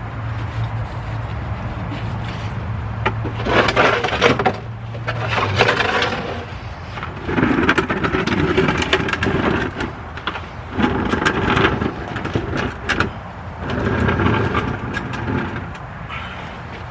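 Several short bursts of clicking tool and handling noise as the oil drain plug is threaded back in and tightened under the truck. A steady low hum runs beneath them until about a third of the way through, then stops.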